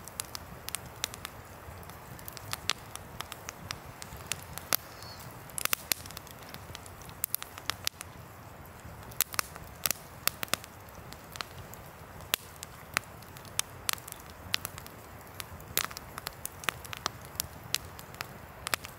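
Wood campfire crackling and popping, with many sharp, irregular pops of varying loudness from the burning logs. Underneath runs a low, steady background rush.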